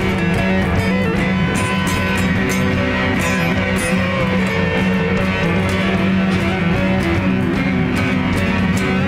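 A live band playing loudly, with electric guitar to the fore and frequent cymbal hits.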